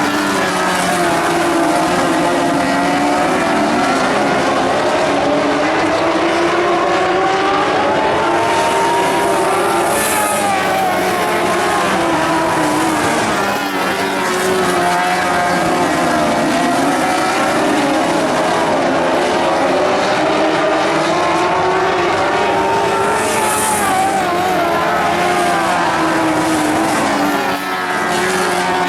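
A field of Lightning Sprint speedway cars racing, several engines running at once. Their pitch rises and falls in waves as the cars accelerate down the straights and back off into the turns.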